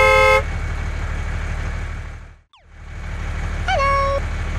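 Tractor engine sound effect running with a steady low throb, a horn toot right at the start and another about four seconds in. The engine sound fades out briefly near the middle and comes back.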